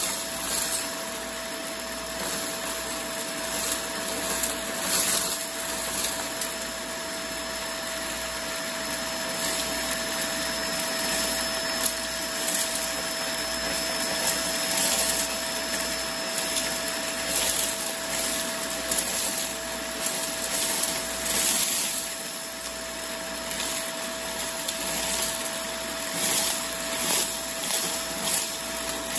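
Bagless upright vacuum cleaner running on its hose with a steady whine, sucking up small crunchy bits. The bits make scattered clicks and rattles as they rush through the hose into the clear bin, surging in quick pulses near the end.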